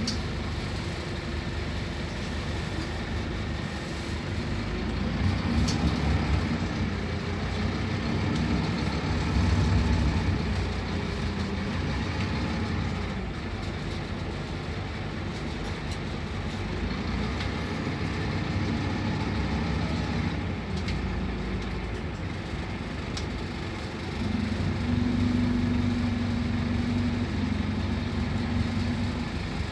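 Scania K280UB three-axle city bus's diesel engine running as the bus drives, getting louder in several stretches as it pulls, then easing off.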